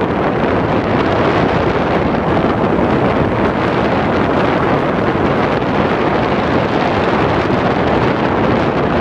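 Steady rush of wind on the microphone, with road noise from a car driving at speed.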